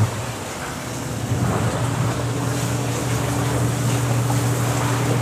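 Twin-tub washing machine running: a steady motor hum with water churning underneath.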